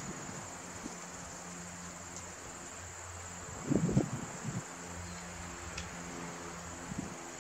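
Steady high-pitched insect chirring. A low, steady hum comes in two long stretches, broken about four seconds in by a brief low rumble.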